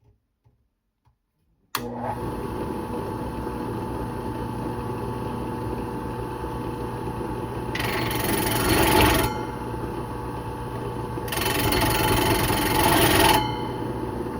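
An electric drill starts up about two seconds in and runs steadily, driving a bimetal hole saw against thin sheet metal. Twice it bites in with a louder, harsher scraping, a second or two each time, while the saw skates and walks over the metal because its pilot bit does not reach far enough to hold it in place.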